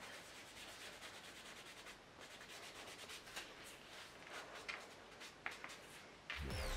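A cloth rubbing leather dye into tooled vegetable-tanned leather, a faint scratchy rubbing. Music comes in near the end.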